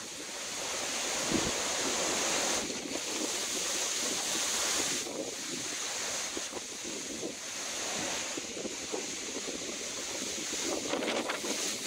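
Strong hurricane wind, about 40 mph gusting to 60, rushing and gusting through palm fronds in rising and falling waves of sound, with the wind buffeting the microphone.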